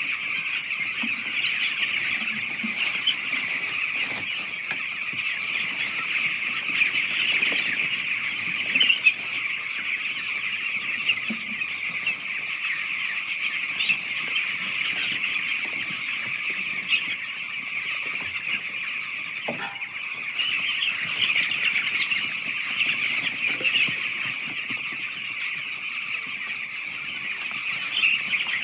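A flock of eight-day-old chicks peeping continuously, a dense high chorus of many overlapping cheeps, with a few scattered knocks.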